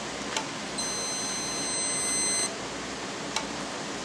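Digital multimeter's continuity beeper giving a steady high beep for about a second and a half, then stopping. The beep means continuity across the homemade keying box's relay contacts: the relay has closed because the box picked up RF from the keyed handheld CB. A short click comes shortly before the beep, and another comes after it.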